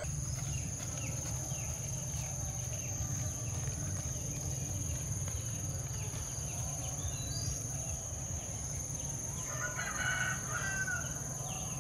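Domestic chickens: scattered clucking, and a rooster crowing about ten seconds in, over a steady high-pitched buzz.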